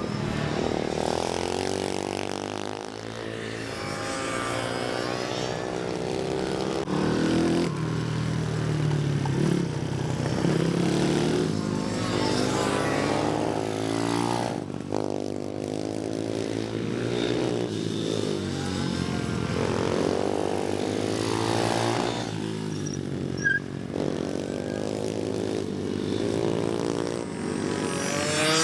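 Pit bike (mini motorcycle) engines revving hard, the pitch rising and falling again and again as the bikes accelerate, back off and pass by.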